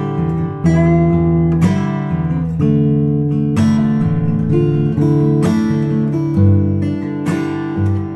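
Background music: acoustic guitar strummed in a steady rhythm, a chord change about every second.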